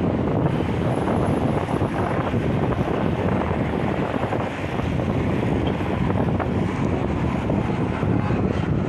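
Sea breeze buffeting an open microphone: a steady, loud rumble of noise with no distinct sounds in it.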